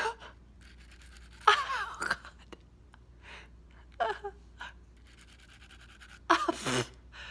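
A woman's short gasps and vocal exclamations, loudest about a second and a half in and again near the end, while she files her chipped front tooth with a nail file. Between them comes the faint, quick rasping of the file stroking across the tooth.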